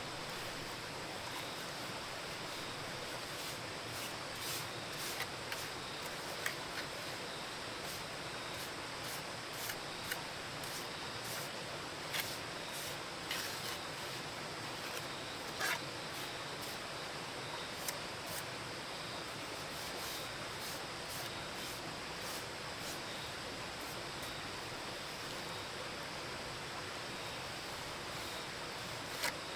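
Steady hiss with a scattering of short, faint clicks and taps.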